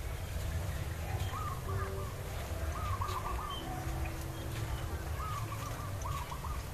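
A bird calling in several short runs of quick repeated notes, over a steady low rumble.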